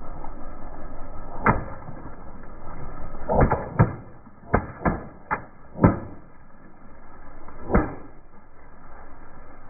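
Long water-filled modelling balloons bursting one after another under a slowly rolling car tyre: about eight sharp pops, spread unevenly over several seconds, with the loudest near the middle.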